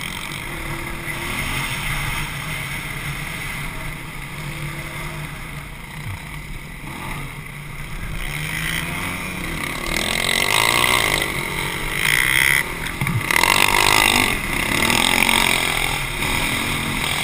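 Onboard sound of a dirt bike's engine racing over a dirt track, its pitch rising and falling as the throttle is worked. It gets louder, with harder revving, in the second half.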